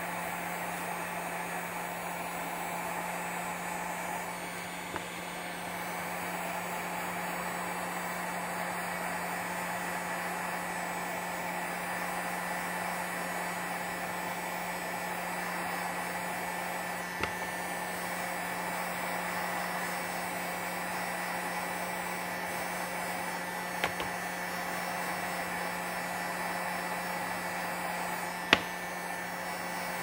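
Electric heat gun blowing steadily, its motor and fan giving an even rush with a steady hum, while it heats the rubber boot of a seat-belt latch to soften it. A few light handling ticks, the sharpest near the end.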